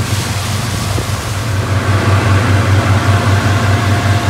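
Fishing boat's engine running under way: a steady low drone with an even pulse, over a hiss of wind and water.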